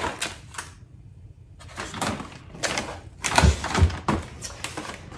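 Rummaging in a kitchen cabinet: a few light knocks, then a plastic bag of dog treats crinkling as it is pulled out, with two dull thumps about three and a half seconds in.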